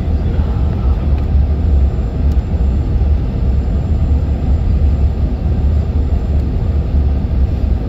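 Airliner cabin noise during the landing approach: a steady, deep rumble of engines and rushing air heard from inside the passenger cabin.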